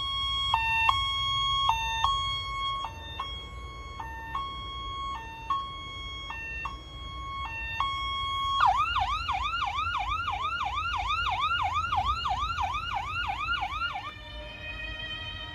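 A loud alarm clock going off with a siren-like sound: a hi-lo two-tone alternation for about eight seconds, then a fast falling whoop repeating about four times a second. Near the end it gives way to music.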